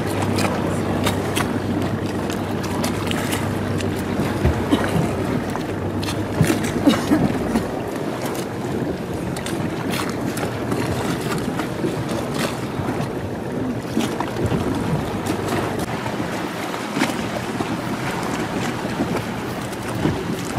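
Motor boat running on the water, its outboard engine giving a steady low hum, with wind noise on the microphone.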